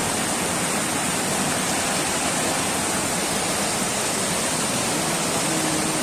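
Fast mountain stream rushing and cascading over boulders in white water, a loud steady rush.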